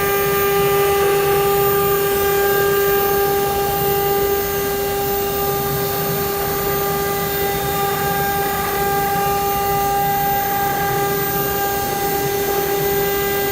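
4-axis CNC wood router's spindle running at a steady high pitch while it machines wood, over a constant hiss of cutting noise. The whine dips briefly about four and a half seconds in.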